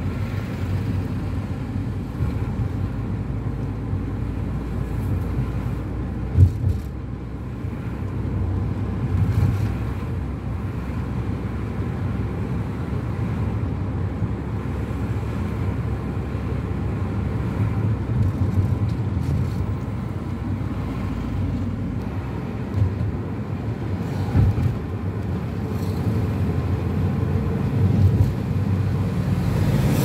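Car driving on a paved road, heard from inside: a steady low rumble of engine and tyres, with one short knock about six seconds in.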